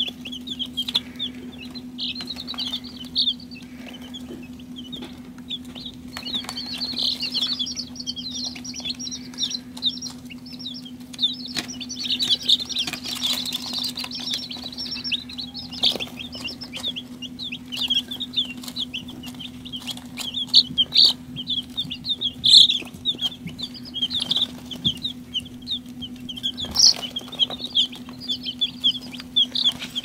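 A brood of two-day-old Icelandic chicks peeping: many short, high chirps overlapping without a break, busiest through the middle.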